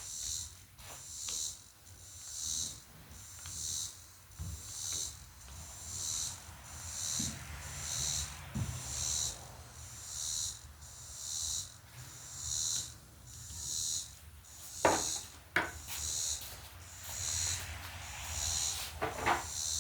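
Insects calling in the evening, a high-pitched pulsing call repeating in an even rhythm. A few sharp knocks sound about 15 and 19 seconds in.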